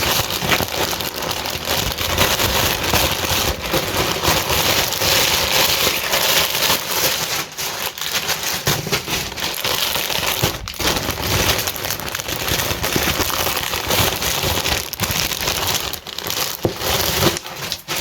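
Crinkly packaging being torn open and rummaged through by hand: a dense, continuous crackling and rustling with many small sharp crinkles.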